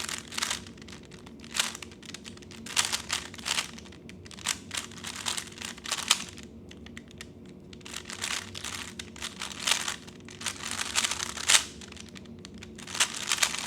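3x3 speed cube being turned rapidly by hand: flurries of fast plastic clicking and clacking, broken by brief pauses.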